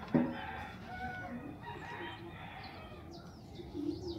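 A sharp knock just after the start, then a rooster crowing in the background, with small birds chirping near the end.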